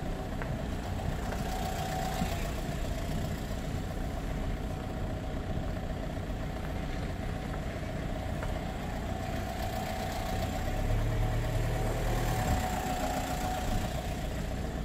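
A steady low rumble of an engine running at idle, swelling a little in the low end about eleven seconds in.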